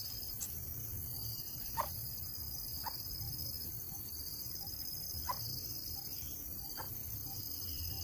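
Steady high-pitched insect trilling with a low background rumble, broken by four short, faint chirps spaced a second or two apart.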